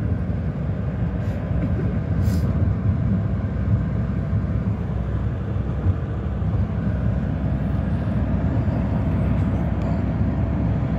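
Steady low rumble of a car driving at speed, heard from inside the cabin: engine and road noise.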